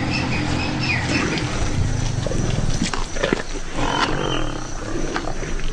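Lions growling as they crowd together feeding on a buffalo kill. A few bird chirps sound in the first second.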